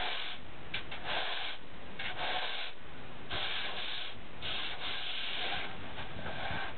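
Sanding block rubbed back and forth by hand over a foam surfboard blank, a rasping hiss with each stroke, about one stroke a second, working down a hump left in the shaping.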